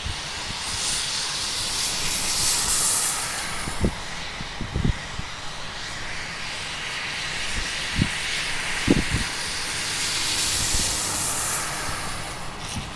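Boeing 787 jet engines at taxi power, a steady high hiss and whine that swells twice as the airliner turns past. A few short, dull low thumps in the middle.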